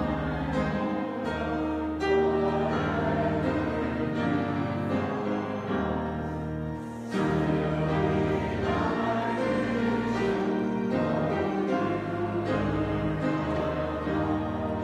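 Slow music of sustained chords, the bass note changing every second or two.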